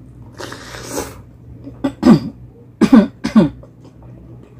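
A person coughing: a long breathy rasp in the throat, then four sharp coughs in quick succession.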